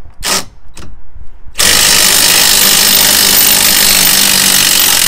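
Ryobi impact wrench undoing a long 18 mm suspension bolt that has already been broken loose with a breaker bar. There are two short trigger blips, then from about a second and a half in it runs flat out, loud and continuous, while the bolt spins out.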